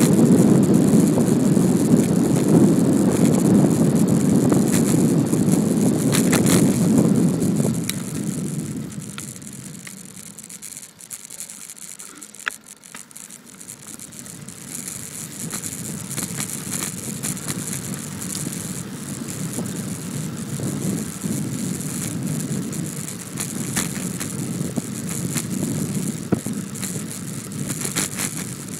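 Wind and road rush from riding a Brompton folding bicycle on a paved road. A loud low rush dies away about eight seconds in, stays quieter for a few seconds, then builds again and holds.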